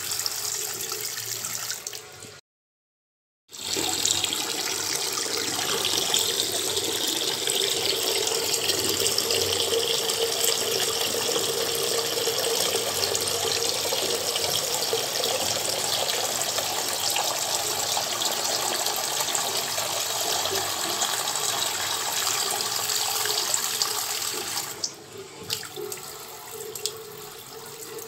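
Water running steadily. It breaks off into dead silence for about a second, about two and a half seconds in, and near the end drops to a quieter, uneven level.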